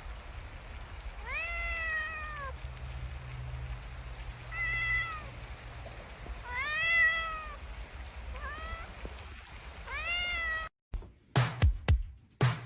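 A cat meowing five times, about two seconds apart, each meow rising then falling in pitch, over a low steady hum. Near the end the sound cuts off and loud music with sharp hits takes over.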